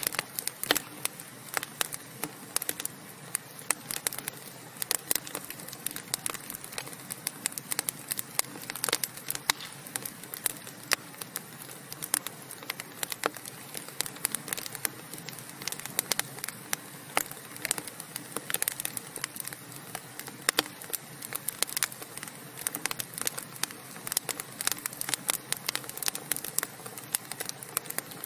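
Burning wood fire crackling: frequent irregular pops and snaps over a steady soft hiss.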